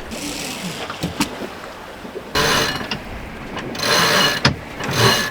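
Sailboat sheet winch being cranked in three short bursts, about a second apart, over steady wind and water noise.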